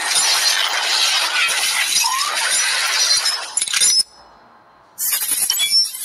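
Sound effects of an animated title intro: a loud, dense crackling hiss that cuts off abruptly about four seconds in, then a second burst lasting about a second.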